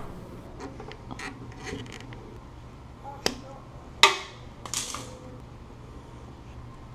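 Hands fitting small plastic inline fuel filters into the rubber fuel hoses at a motorcycle's carburettors: a few small clicks and taps of parts being handled, the sharpest a little after three seconds in and about four seconds in.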